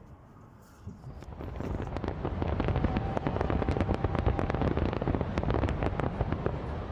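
Fireworks crackling: a dense run of rapid pops and crackles that builds about a second in and keeps going over a low rumble.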